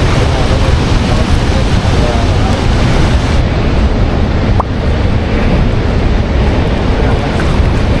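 Loud, steady roar of the Rhine Falls' rushing water, mixed with wind buffeting the microphone.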